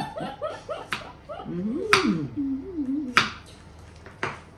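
Women laughing briefly, then humming "mmm" with wavering pitch as they taste fruit, with four sharp clicks, like a knife or fingers tapping a plate.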